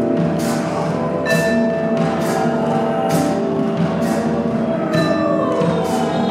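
Free improvised ensemble music on vibraphone, cello and drum kit: held tones under ringing, bell-like vibraphone notes and a bright percussion hit roughly once a second. About five seconds in, a tone slides downward in pitch.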